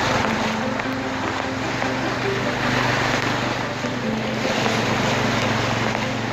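A motor vehicle's engine running steadily with a low hum, over a constant wash of noise from moving floodwater.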